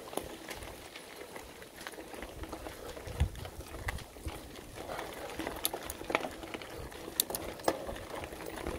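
Mountain bike rolling along a gravel trail: tyres crunching over the loose surface, with sharp knocks and rattles from the bike as it goes over bumps.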